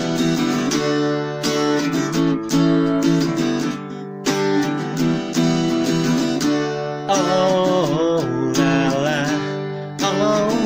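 Band recording with strummed guitars over a steady beat, and an electric guitar played along to it; a wavering lead line comes in about seven seconds in.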